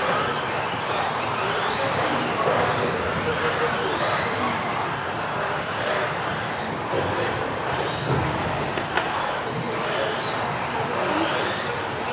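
Several electric modified-class 1:10 RC off-road buggies racing together, their motors giving overlapping whines that rise and fall as the cars accelerate and brake, over the hiss of tyres on the floor.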